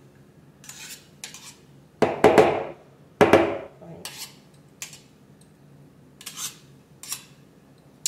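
A metal spoon scraping beaten egg whites off metal hand-mixer beaters over a bowl, with short scrapes and clinks. There are two louder clatters, about two and three seconds in.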